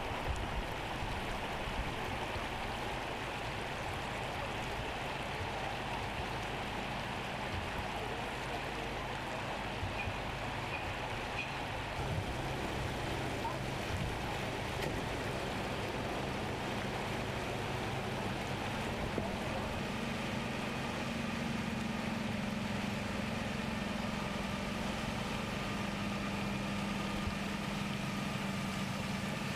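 Steady rush of flowing floodwater. A low, steady engine hum comes in about two-thirds of the way through.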